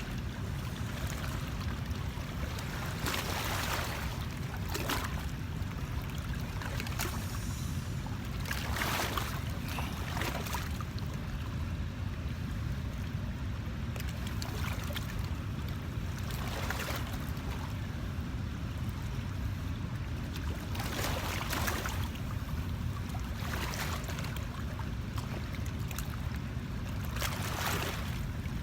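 Outdoor water ambience: a steady low rumble with brief hissing swishes every few seconds, like water splashing or wind gusting.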